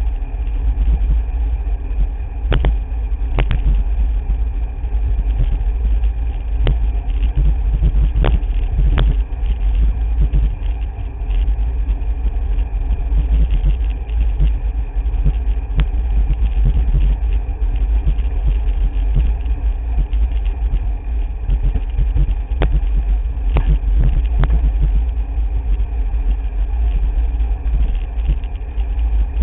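Wind buffeting the microphone of a handlebar-mounted camera on a moving bicycle: a loud, steady low rumble mixed with tyre noise on the road, broken by a few sharp clicks and rattles.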